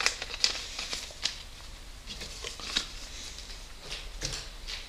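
Paper letter and stickers being handled and shuffled: light paper rustling with a few soft ticks and taps scattered through.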